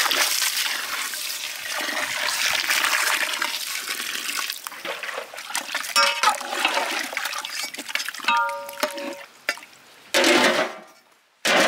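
Water pouring and gushing into a large aluminium cooking pot of chicken and masala for the first four to five seconds. After that come scattered knocks of a ladle against the pot and a brief ringing tone, then a loud clatter near the end as the metal lid goes onto the pot.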